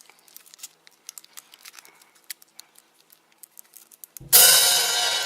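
Faint scattered clicks and rustles of a chocolate egg being handled and opened. About four seconds in, a loud cymbal-like crash of music comes in suddenly and slowly fades.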